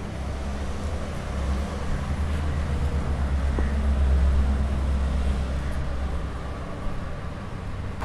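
Low rumble of road traffic with an engine hum, swelling to its loudest about halfway through and then easing off, as of a heavy vehicle passing.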